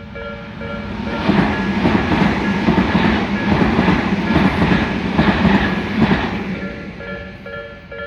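A Tobu Nikko Line train passes over the level crossing, its wheels clattering over the rail joints in paired beats from about a second in until about six seconds in. The crossing's electronic warning bell dings in a steady two-tone alternation; the train drowns it out, and it comes back clearly near the end.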